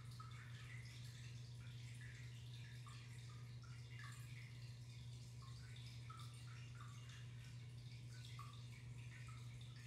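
Aquarium filter running: a faint steady low hum with light, irregular trickling and dripping of water.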